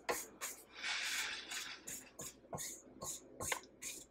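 Spatula scraping buttercream frosting off the sides of a stainless steel stand-mixer bowl in short repeated strokes, about two to three a second, with one longer scrape about a second in.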